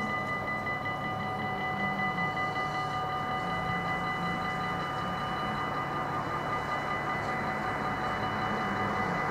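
Level-crossing warning bell ringing rapidly and steadily, over a low rumble that builds near the end as a train approaches.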